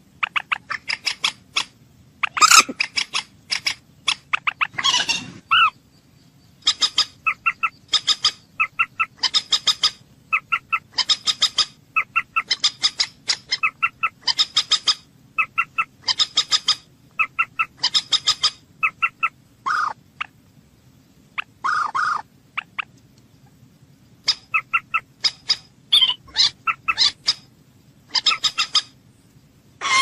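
Moorhen calling: repeated quick runs of short, sharp, high notes, a few at a time, with a louder burst about two and a half seconds in and a few longer, lower calls about 20 and 22 seconds in.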